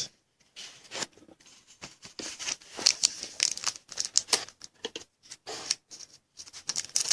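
Trading cards and a card pack's wrapper being handled: a quick, irregular run of small crinkles, snaps and clicks.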